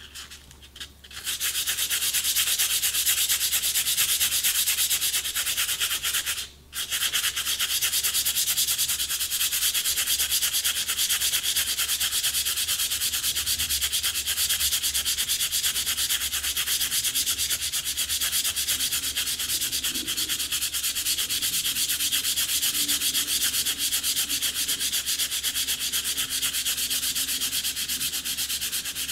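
Fine 120-grit sandpaper rubbed rapidly against the cane of a hand-made clarinet reed on a glass plate, thinning one side of the reed. A fast, steady scratching that starts about a second in, with a brief break about six seconds in.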